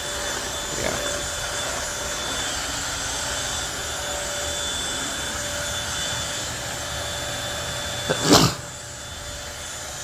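Bissell 3-in-1 Turbo corded stick vacuum running steadily on carpet with a thin motor whine. A loud bump comes about eight seconds in, and the vacuum runs a little quieter after it.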